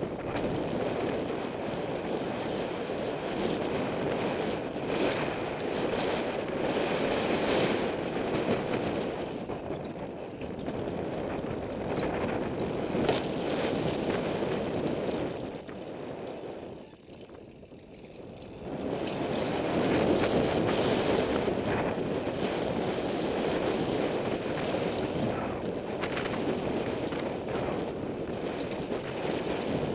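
Wind rushing over an action camera's microphone, mixed with tyre and frame noise from a mountain bike riding fast down a dirt and gravel trail, with a few sharp knocks. The rush eases off briefly a little past halfway, then comes back as loud as before.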